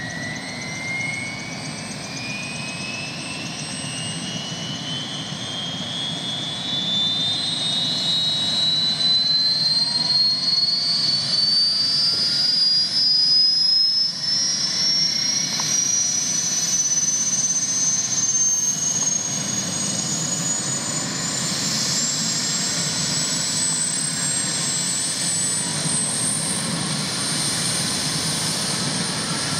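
Bell Huey helicopter's Lycoming T53 turboshaft engine starting up: a turbine whine climbs steadily in pitch as the engine spools up, over the growing rush of the main rotor beginning to turn. The whine levels off near the end.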